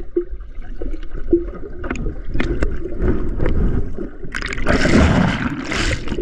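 Muffled underwater sound picked up by a GoPro submerged in a swimming pool: a low rumble with scattered bubble clicks. A little over four seconds in comes a loud rush of churning water and bubbles lasting about two seconds.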